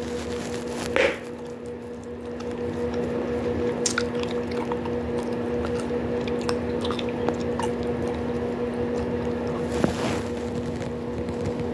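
Bubblegum chewed with the mouth close to the microphone: wet squishing and smacking with small clicks, and two sharper pops, about a second in and near the end. A steady low hum runs underneath.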